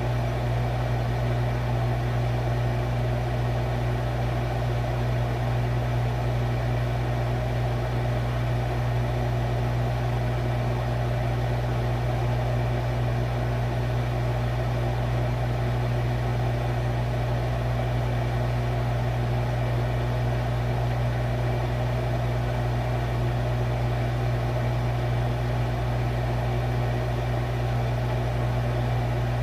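Refrigerator running: a steady low hum heard from inside the fridge, unchanging throughout.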